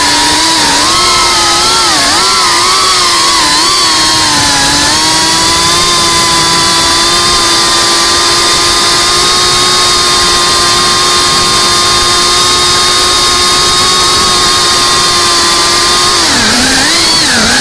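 Geprc Cinelog 35 cinewhoop drone's motors and ducted propellers whining in flight. The pitch dips and rises with throttle changes in the first few seconds, holds steady through the middle, then drops and climbs again near the end.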